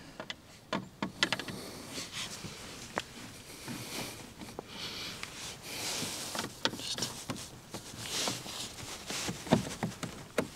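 Scattered small clicks and taps as a mesh radiator grille is pressed and clipped into a car's front bumper intake with hand and screwdriver, with soft rustling between them.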